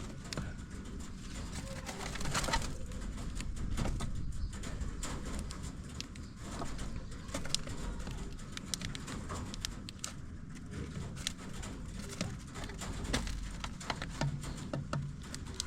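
A flock of domestic birds calling low and softly, with many scattered sharp clicks and taps throughout.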